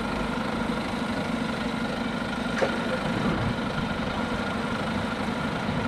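Double-decker diesel bus idling at a stop: a steady engine hum with a faint, constant whine above it.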